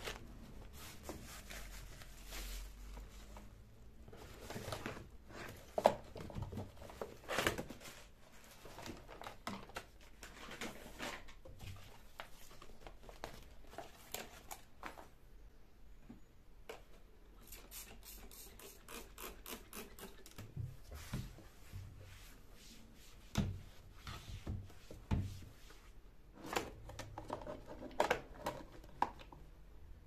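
Rustling and crinkling of folded plastic and cloth carrier bags being handled and taken out of a wooden drawer, with scattered light knocks and clicks of things set against the drawer.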